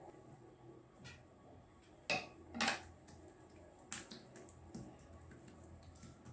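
A steel spoon clinks three times against a hard surface over about two seconds. Under it is the faint rubbing of a hand spreading oil over flattened parotta dough on a stone countertop.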